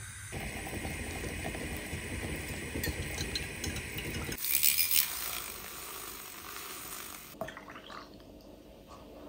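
Coffee being made: a steady mechanical whirring rattle for about four seconds, then a brighter splashing as liquid is poured, a click, and softer pouring of frothed milk into a glass mug near the end.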